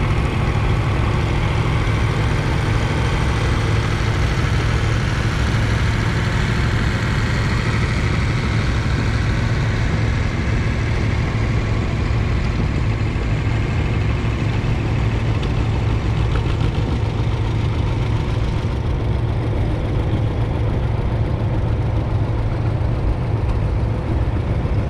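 Antique farm tractor engine running steadily at an even speed, heard from on board the tractor.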